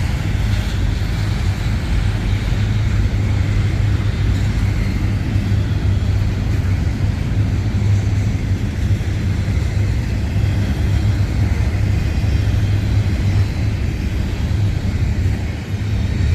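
Diesel locomotive idling, a steady low rumble.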